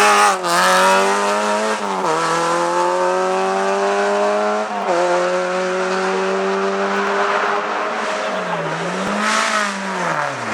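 Hillclimb race car engine pulling hard through the gears, its revs climbing with sharp breaks at upshifts about two and five seconds in. Near the end the revs drop and then pick up again.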